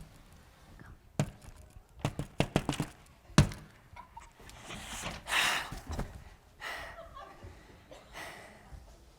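A run of knocks and thumps, the loudest about three and a half seconds in, with rustling and hissing in between.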